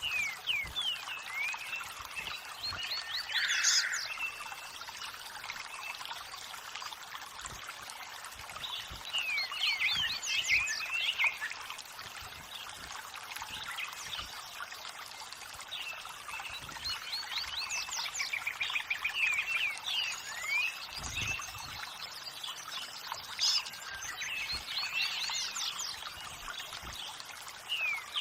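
Steadily running water, like a small stream, with several bursts of songbird chirping: clusters of quick rising and falling notes every few seconds.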